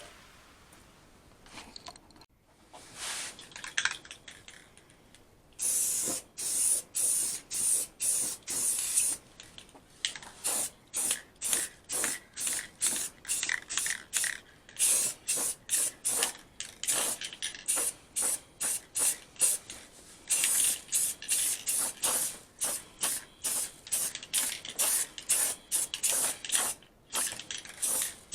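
Paint being sprayed in many short hissing bursts, a little more than one a second, with a longer unbroken spray about six seconds in. The first few seconds are quieter.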